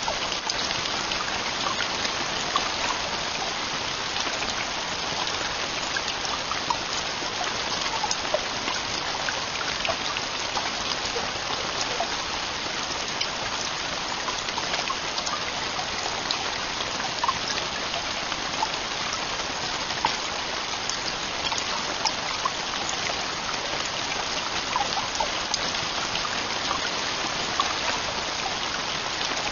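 Heavy rain falling steadily on a camping tent roof: an even hiss with many distinct drop taps scattered through it.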